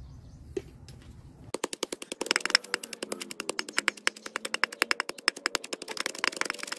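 Wooden pestle pounding shallots, chilies and herbs in a carved wooden mortar, rapid strikes several a second, starting about a second and a half in.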